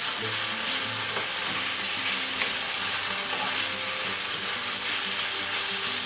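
Chopped tomato, onion and garlic sizzling steadily in oil in a frying pan while being stirred with a spoon, with a few light scrapes and clicks of the spoon against the pan.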